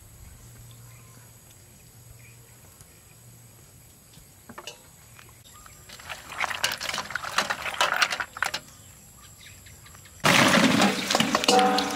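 Peeled fruit dropping and tumbling wetly onto ice cubes in a bowl, a clatter that comes in clusters from about halfway through. About ten seconds in, a loud, sudden rush of water or liquid being poured in takes over.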